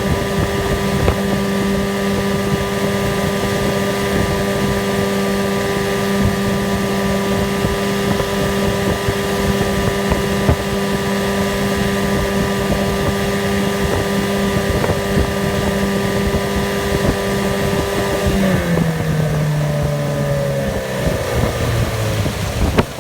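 1982 Evinrude 9.9 hp two-stroke outboard motor running steadily at speed under a boat, then throttled back about three-quarters of the way through, its pitch dropping as it slows toward idle.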